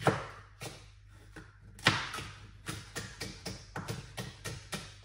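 Kitchen knife chopping a red pepper on a chopping board: a run of sharp knocks, the loudest about two seconds in, then about three a second.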